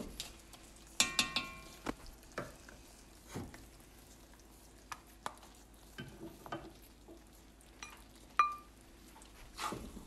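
Spatula scraping and tapping in a stainless steel saucepan as steamed rice is scooped into a ceramic bowl, with scattered clinks of utensil on pan and bowl: a ringing clink about a second in and another short ringing clink near the end.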